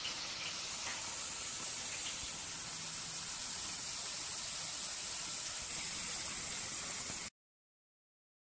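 Potato slices frying in hot oil in a stainless-steel chip fryer: a steady sizzling hiss that cuts off abruptly about seven seconds in.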